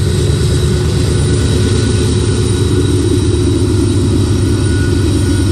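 Union Pacific diesel locomotive passing close by, its engine running with a steady heavy rumble and a faint high whine over it.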